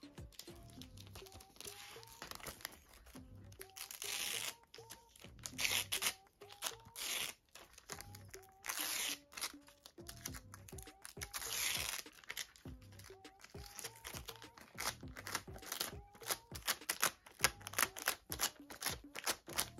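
Plastic film and packaging crinkling and tearing as a glass screen protector and its backing film are handled, with several louder rustles and, in the second half, many quick finger taps and clicks on the phone's glass. Soft background music with a steady beat plays underneath.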